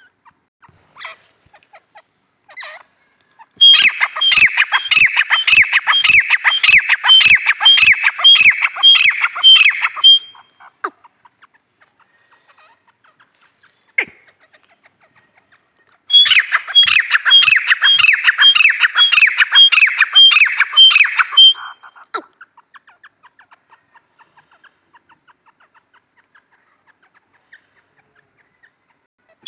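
Grey francolin (desi teetar) calling loudly in two bouts of rapid repeated notes, about two a second. Each bout lasts around six seconds, with a pause of several seconds between them.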